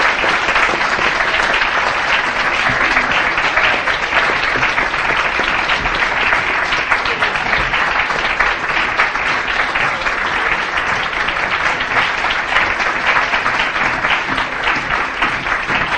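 Audience applauding: a dense, steady patter of many people clapping their hands.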